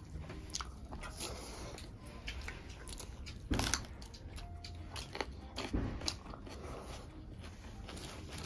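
Close-up eating sounds: bites crunching into large raw green chillies, with chewing. The loudest crunch comes about three and a half seconds in and another just before six seconds, with smaller crunches between.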